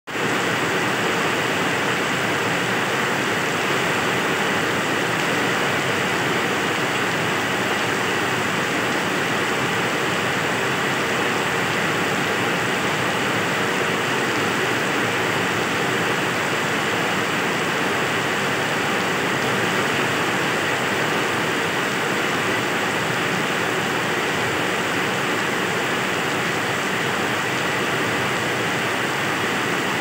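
Heavy rain pouring down onto wet paving, a steady, dense rush of falling water.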